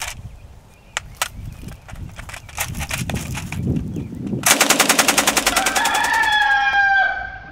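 A Soviet DP-28 light machine gun in 7.62x54mmR firing one long full-auto burst of about two seconds, at roughly ten shots a second, after a few faint handling clicks. Over the end of the burst a drawn-out pitched call with several stacked tones sounds for about a second and a half.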